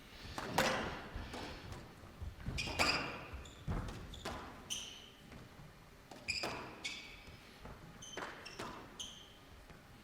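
Squash rally: the ball cracking off rackets and walls in irregular strikes a second or two apart, with short high squeaks of shoes on the court floor.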